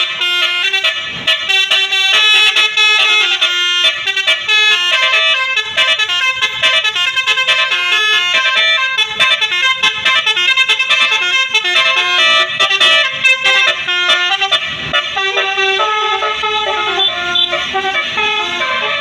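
Bus 'telolet basuri' 12-note musical horn playing a fast melody, its notes switching several times a second in a continuous run with brief breaks.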